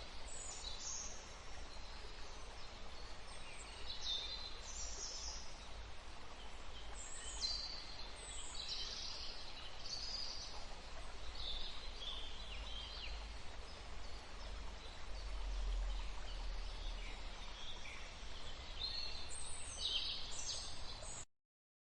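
Wild birds chirping and calling over a steady hiss of outdoor background noise with a low rumble. The sound cuts off suddenly near the end.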